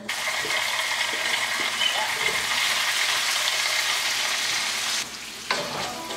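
Zucchini and asparagus sizzling as they fry in a pan, a steady hiss that drops off about five seconds in and flares up again half a second later.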